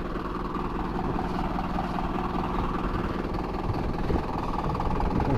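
Motorhome engine running steadily at an even pitch.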